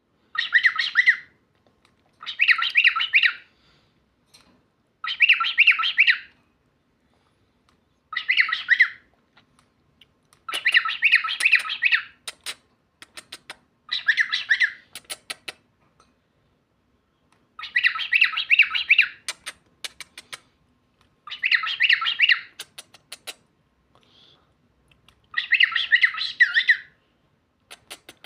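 A pet cockatiel, kept as a talking bird, chattering in short high-pitched bursts of about a second, one every two to three seconds, nine in all, with sharp clicks between some of them.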